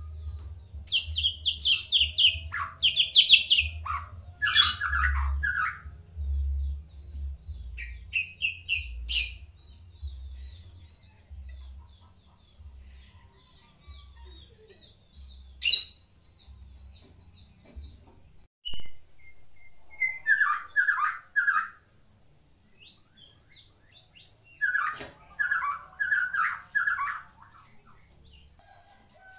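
White-rumped shama (murai batu) singing in several loud bursts of rapid, varied phrases, with pauses in between that carry a faint high trill. It is a trained Medan-type shama whose song is full of 'isian', imitations of other birds' calls.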